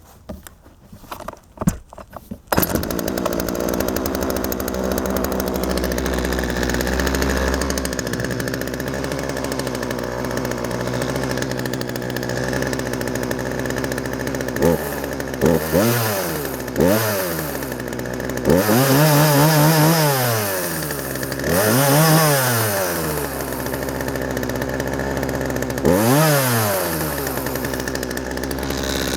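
Poulan Pro 260 42cc two-stroke chainsaw being pull-started, catching about two and a half seconds in and settling to a steady idle. From about halfway, the throttle is blipped several times: a few short revs, then longer revs up to high speed, each falling back to idle.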